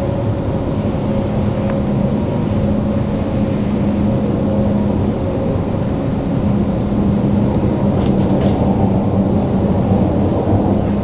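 Steady low drone of an engine running, with a constant hum in it that holds one pitch.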